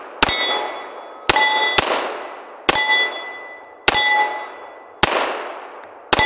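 Remington R1 Limited double-stack 1911 in .45 ACP fired seven times at an uneven pace. Each shot is followed by steel targets ringing and fading away.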